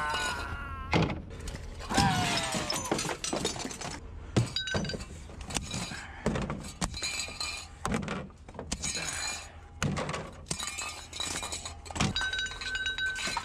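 Repeated knocks and clatter of discarded junk being handled and loaded, with glass clinking and ringing.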